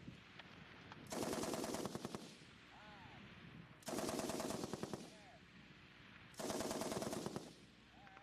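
M60 7.62 mm machine gun firing three short bursts, each lasting about a second and evenly spaced: the controlled 6-to-9-round bursts of a qualification string.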